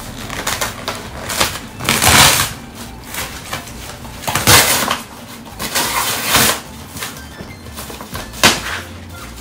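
Corrugated cardboard box being torn open by hand: a series of loud, irregular rips and crackles, some short and some lasting most of a second.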